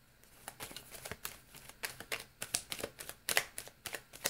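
Tarot deck being shuffled by hand: an irregular run of sharp card clicks and slaps, several a second, loudest past the middle.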